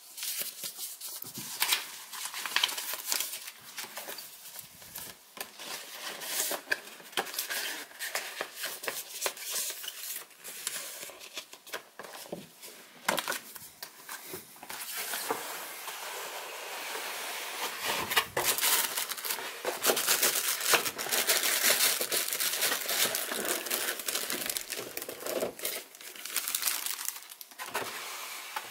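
Paper and cardboard packaging rustling and crinkling as it is handled during an unboxing, with many small irregular crackles. The crinkling grows louder and denser through the second half.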